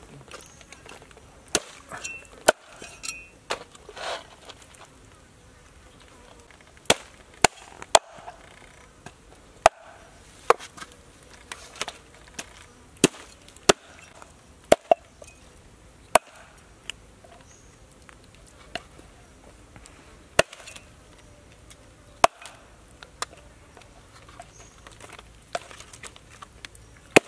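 Cleaver chopping through baby crocodile meat and bone on a wooden chopping board: sharp single knocks at irregular intervals, from under a second to a couple of seconds apart.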